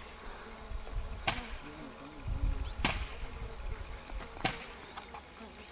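Three sharp knocks at an even beat, about one every second and a half, each with a short ring, over a low wind rumble on the microphone.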